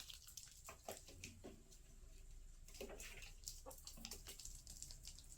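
Near silence, broken by faint, scattered light taps and scuffles.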